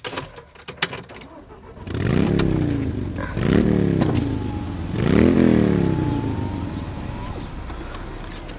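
Volkswagen car engine revved three times, each rev climbing quickly and sinking back slowly, heard from inside the cabin. Light clicks and rattles come before the first rev.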